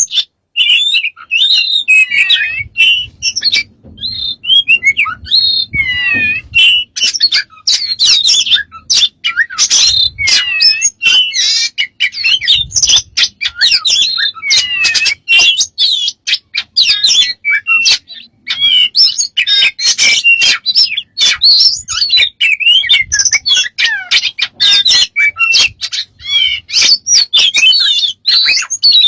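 A bird calling without pause in a fast, varied stream of gliding whistles, chirps, squawks and sharp clicks.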